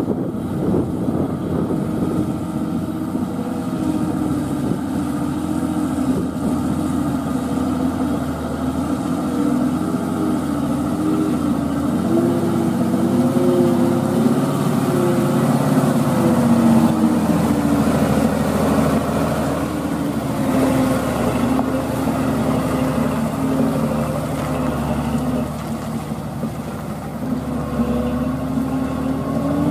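Loaded Hino dump truck's diesel engine running under load as the truck drives slowly past on a gravel road. Its pitch rises and falls with the throttle, and it is loudest about halfway through as the truck passes closest.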